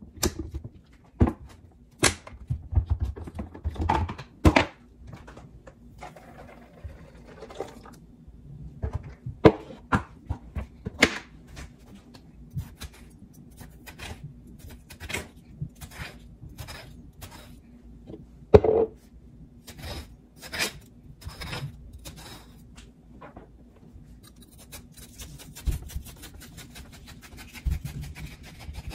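Kitchen handling sounds: scattered knocks, taps and clicks of utensils and containers on a counter, a few of them louder thunks, over a faint steady hum.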